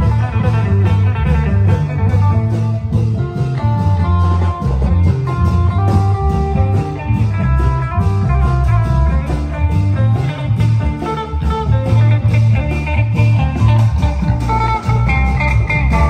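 Loud Thai Isan folk music from a klong yao long-drum band, with a steady heavy drum beat, regular cymbal-like ticks and an amplified melody line over it.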